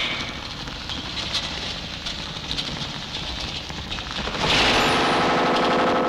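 Fire crackling on a burning figure: a dense run of small snaps and pops. About four and a half seconds in, a loud wavering cry breaks in over it.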